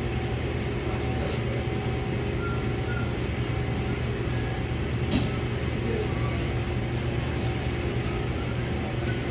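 Steady low hum of an idling vehicle engine, with a couple of faint clicks about a second in and about five seconds in.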